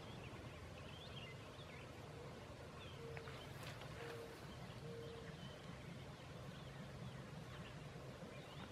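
Faint outdoor ambience of birds chirping: many short, scattered calls, with three short low notes about a second apart around the middle.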